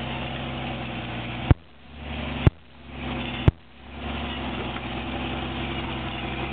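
Off-road vehicle engine idling steadily, broken three times by a sharp click, each followed by a brief drop in loudness.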